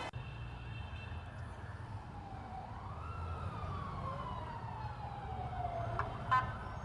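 Emergency vehicle siren wailing, its pitch rising and then gliding slowly down, over the low rumble of street traffic. A short, loud beep comes near the end.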